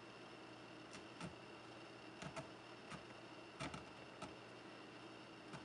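Faint, irregular light clicks and taps from a piece of wire being handled and worked into a foam carriage shape, over a steady low hiss.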